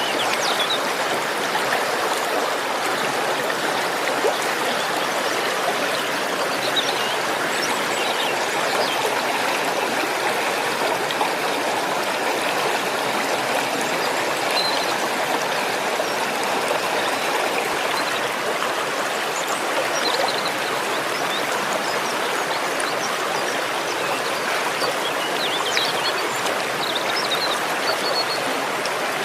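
Waterfall: a steady, unbroken rush of falling and running water.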